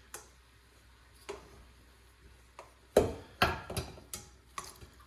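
Spoon knocking against a pot while sticky cooked pasta is scooped and shaken into it: a few light, scattered knocks, then a louder quick run of knocks about three seconds in.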